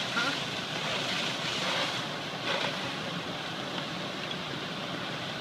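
Steady rushing noise of fire apparatus at work: a fire truck's engine and pump running while hoses spray water onto the fire.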